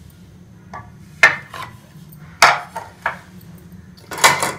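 Kitchen dishes and utensils clinking and knocking around a glass salad bowl: a string of sharp, irregular strikes, the loudest about a second in, another in the middle, and a quick run of them near the end.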